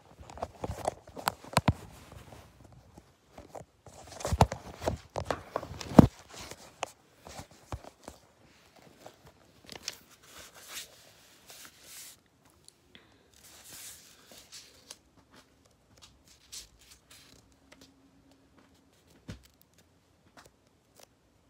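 Handling noise and paper rustling: a run of clicks and knocks for about the first six seconds as the phone is moved about, then softer, scattered rustles of book pages being turned.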